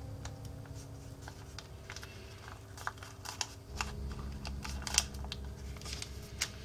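Origami paper being handled and creased by fingers: a scatter of short crisp clicks and crinkles, the sharpest about five seconds in.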